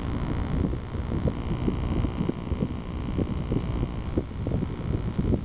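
Wind buffeting the microphone: a steady low rumble broken by irregular soft thumps.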